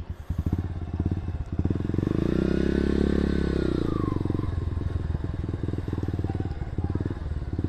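Motorcycle engine running. It picks up revs from about two seconds in, eases back about two seconds later, then runs on steadily.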